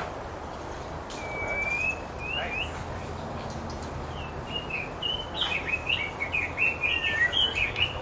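White-rumped shama singing: a clear whistled note about a second in, then from about halfway a quick run of varied, short whistled notes that grows louder toward the end.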